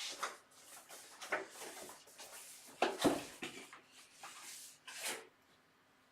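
Rummaging with and handling a set of Allen keys: a run of small clicks, rattles and rustles, with one sharper knock near the middle. It stops abruptly about five seconds in.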